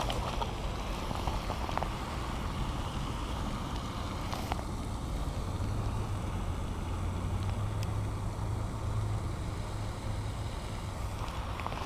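Steady low rumble of wind on the microphone, with a few light clicks from handling the fish and tackle.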